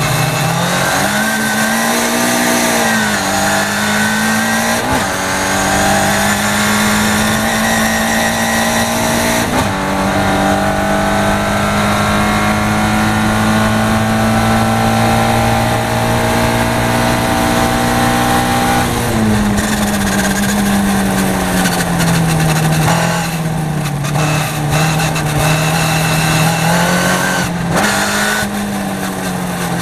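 Caterham Seven race car's four-cylinder engine heard from the cockpit, accelerating hard with upshifts about 3, 5 and 9 seconds in. It then holds high, steady revs on a straight for about nine seconds. The revs fall away under braking and downshifts just before halfway, and climb again near the end.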